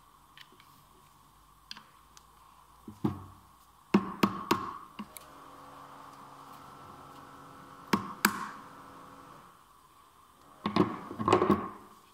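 Hammer blows on a steel gear at the end of a manual gearbox's shaft, with the metal ringing on after each strike. There is a single blow about 3 s in, three quick blows around 4 s, two near 8 s, and a rapid flurry near the end.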